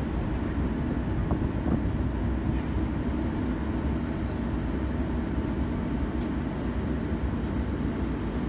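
Steady low rumble of a passenger train running, heard from on board.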